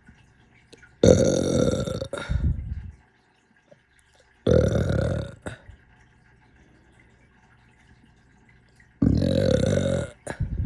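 A person burping loudly, three times, with pauses between; the first burp is long and drawn out.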